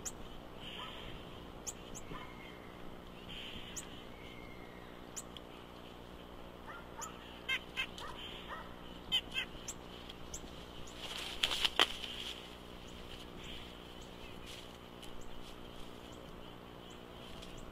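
Nuthatches calling in quick runs of short, repeated nasal notes among scattered high chirps: a warning call as a bald eagle comes in. About two-thirds of the way through, a louder brief whooshing burst of the eagle's wings as it lands on the nest.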